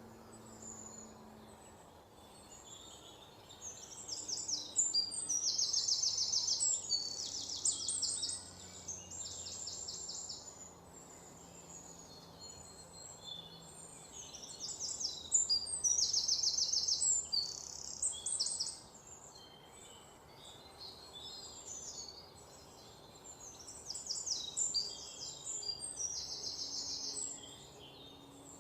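Bird song: three bouts of high, rapid trilled chirping, each a few seconds long and roughly ten seconds apart, over a faint steady background hum.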